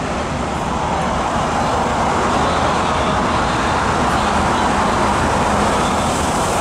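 MTR Kwun Tong Line electric train running past: a steady rumble and hiss of the train on the track, mixed with city traffic noise.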